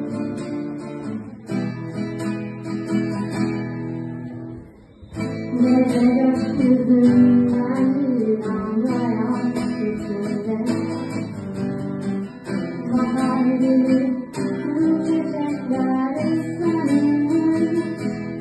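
Acoustic guitar playing a song accompaniment, with a short drop almost to stillness about five seconds in before the playing picks up again.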